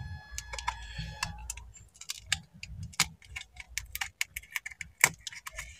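The back cover of an Oppo A55 phone being pried away from its frame by hand, giving a run of sharp, irregular clicks and snaps as it comes loose.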